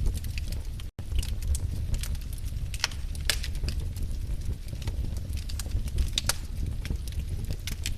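Wood fire burning with a steady low rumble and frequent sharp crackles and pops. The sound cuts out for an instant about a second in.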